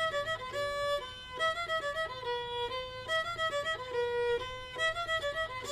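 Background music: a fiddle playing a melody of quick, separate notes.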